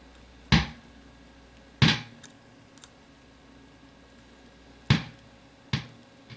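Four sharp clicks and two fainter ticks as an alligator clip is fumbled onto a resistor lead on a guitar-pedal circuit board, struggling to connect. A low hum drops out about two seconds in.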